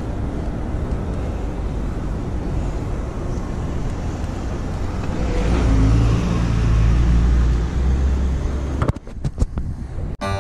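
Road traffic: a steady rush of car noise, louder as a vehicle passes close from about five to eight seconds in. Near the end the sound breaks up into a few sharp clicks.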